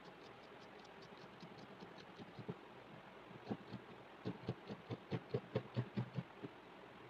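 Scissors snipping through coarse open-weave cloth in a run of quick cuts. They are faint at first, then steadier at about four or five snips a second through the second half.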